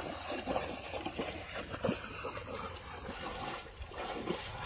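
Water splashing and trickling, with small irregular splashes and drips throughout.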